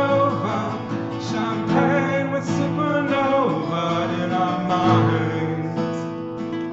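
Strummed acoustic guitar with a solo voice singing the song's closing line; the voice falls away about halfway through, leaving the guitar chords ringing on.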